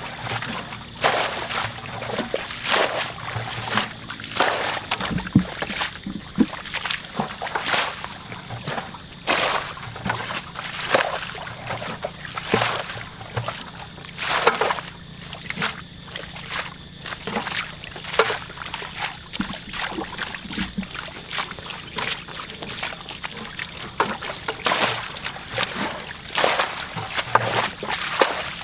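Muddy water being bailed out of a shallow pool with a plastic bucket and basin: repeated scoops and splashes as the water is flung out, about one every second or two, with sloshing and trickling in between.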